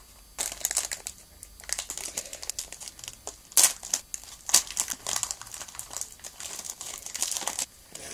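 Foil Pokémon booster pack wrapper crinkling in irregular bursts as it is handled and opened, loudest a little before halfway.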